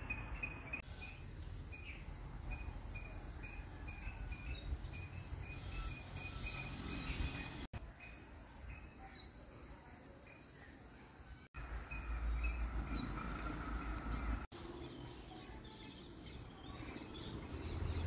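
Outdoor garden ambience: a steady low rumble with a small creature's high chirp repeating at an even pace for the first half. The sound drops out briefly three times at splices, and the low rumble is louder between the second and third dropouts.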